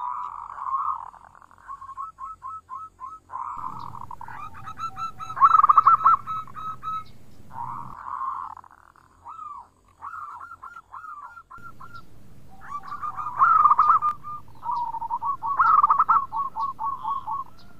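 Zebra dove (perkutut) cooing in repeated bouts of quick, short staccato notes.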